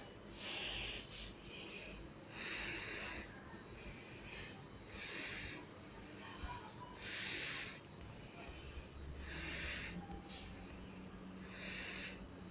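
Slow, rhythmic breathing close to the microphone: a soft, hissy breath about every two seconds, six in all.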